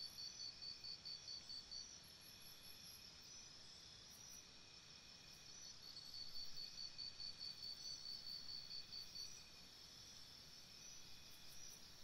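Faint insects chirping in rapid, even pulses, high-pitched, over a steadier high insect drone. The pulsed chirping stops about two seconds in and starts again about halfway through.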